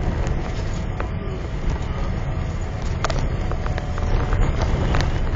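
Cabin noise in a Boeing 777-300 rolling along the ground after landing: a steady low rumble from the engines and wheels, with a few short clicks and rattles from the cabin.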